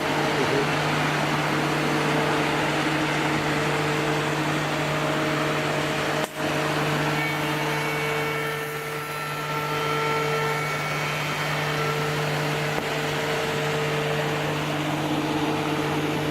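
CNC200 tenon-cutting woodworking machine running: a steady motor and cutter noise with a low hum, broken by a brief dropout about six seconds in.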